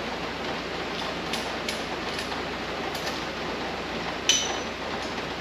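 Socket ratchet clicking a few times on a spark plug in a 1978 Chrysler 440 big-block V8, then a sharp metal clink that rings briefly about four seconds in, over a steady background hiss.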